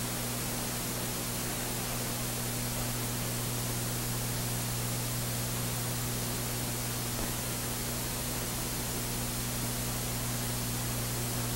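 Steady hiss with a low, even hum and no other sound: the background noise of an old 1940s film soundtrack.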